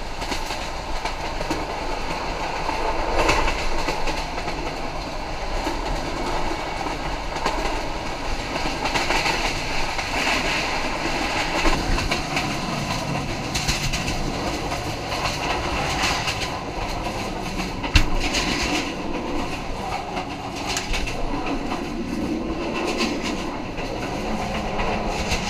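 Passenger train running along the track, wheels clattering over the rails with a steady rumble; one sharp knock stands out about 18 seconds in.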